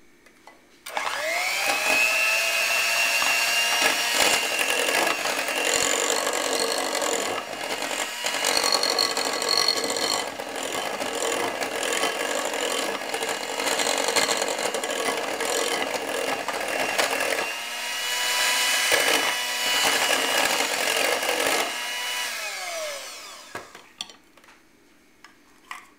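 Electric hand mixer with twin wire beaters beating an egg into creamed butter in a glass bowl. The motor whine rises as it spins up about a second in, runs steadily for about twenty seconds, then winds down and stops.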